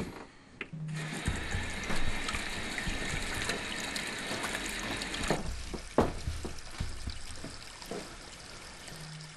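Bathroom tap running into a sink while hands are rubbed under the stream. The water starts about a second in and cuts off about five seconds in, leaving a faint hiss and a sharp knock about a second later.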